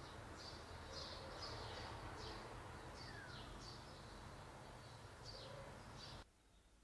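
Small birds chirping outdoors: short, high, falling chirps come irregularly, about two a second, with one longer falling call about three seconds in, over a steady low outdoor background noise. The sound cuts off suddenly near the end.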